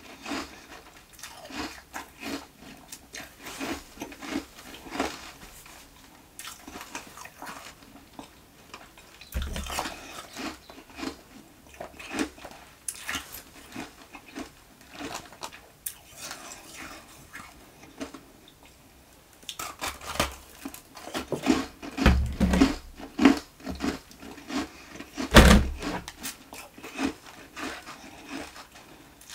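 Close-miked chewing and crunching of carbonated ice nuggets: a quick run of crisp crackles, broken by several louder bites, the loudest near the end.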